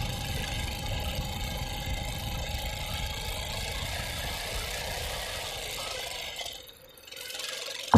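Zimbru 6559 motocultor engine running steadily while the machine drives along the road. The sound drops away sharply near the end and comes back fainter.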